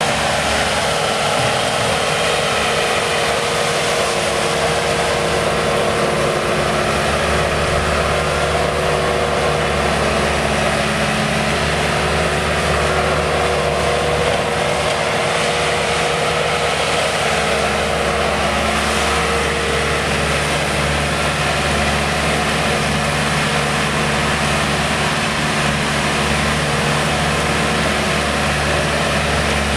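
Bobcat S250 skid steer loader running, its turbocharged diesel engine at a steady speed while the machine drives about and works its loader bucket.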